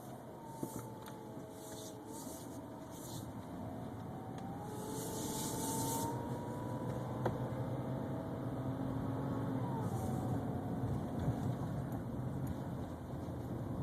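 A 2011 BMW 328xi with a whine: a thin whine with several overtones that slowly rises in pitch and then falls away, over the car's steady running and road noise.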